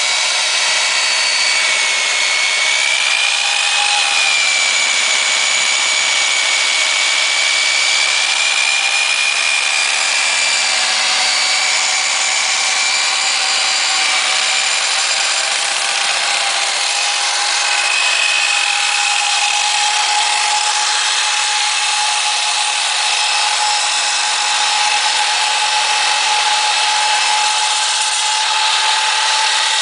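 KOR-IT K-806 electric core drill (1500 W, 110 V motor) running steadily on its stand, its diamond core bit cutting into a concrete slab. A high whine wavers slightly in pitch over a steady grinding noise.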